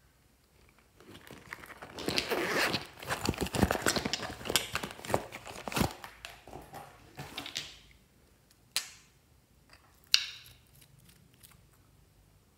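Crinkly plastic rustling and crackling as hands handle a holographic vinyl pouch, loudest in the first half. Two sharp clicks follow, a little over a second apart.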